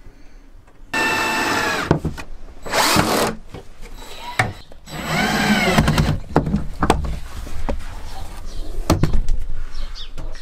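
Cordless drill running in three short bursts, its whine rising and dropping off in the last, followed by scattered knocks of wood during assembly of a timber frame.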